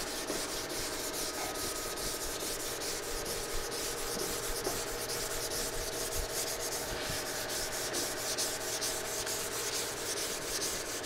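Primer on a car body panel being hand-sanded with 220-grit sandpaper: quick, even back-and-forth rubbing strokes, a few a second, over a faint steady hum.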